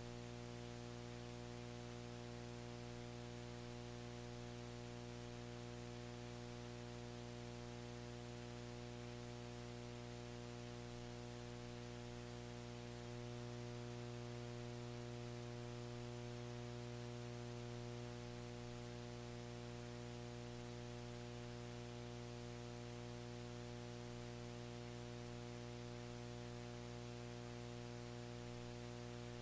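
Faint, steady electrical hum with a stack of overtones over light hiss from the recording or sound system, a little louder for about five seconds in the middle.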